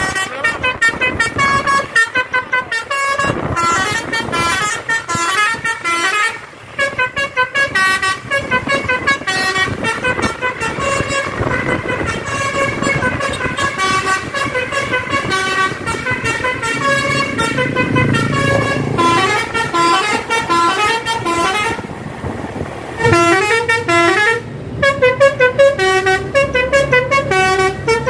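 Tour bus's basuri telolet horn, a multi-note air horn, playing quick melodies of short stepped notes over the bus engine's drone, with a short break about four-fifths of the way through.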